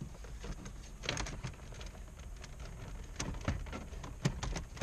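Plastic dash trim of a Toyota Tundra creaking and clicking as it is pried loose with a plastic trim tool, with a few sharp clicks about a second in and several more in the last second and a half.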